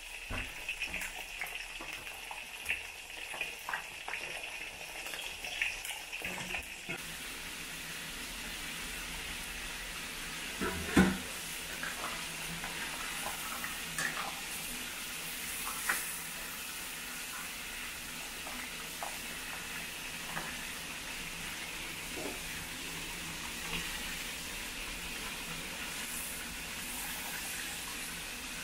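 Crab pieces sizzling in boiling sauce in a stainless steel wok, a steady hiss, with a metal ladle stirring and clinking against the wok; the loudest knock comes about eleven seconds in.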